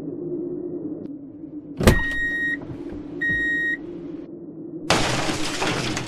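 A sharp knock and two short electronic beeps, then about five seconds in a tempered glass tabletop explodes: a sudden burst of shattering glass, with fragments showering down for about two seconds. A steady low hum runs underneath.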